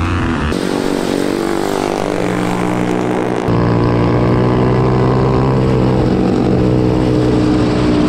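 Single-cylinder dirt-bike engines of small ride-on race cars running hard at a steady pitch, heard from onboard at speed, the first a KTM 450 four-stroke. About three and a half seconds in the sound switches suddenly to a second car's engine, lower-pitched and slightly louder.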